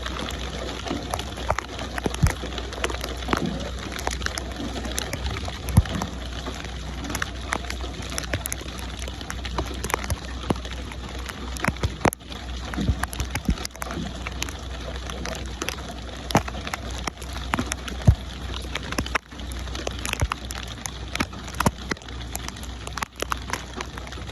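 Steady rain falling, with many sharp drops pattering on a surface over a constant low rumble.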